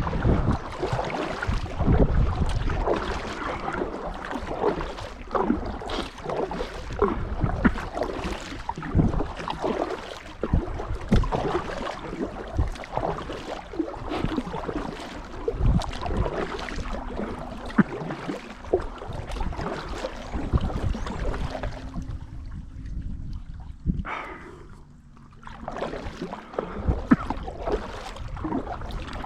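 Kayak paddle dipping and pulling through canal water, with repeated splashes and drips. The strokes ease off for a few seconds near the end.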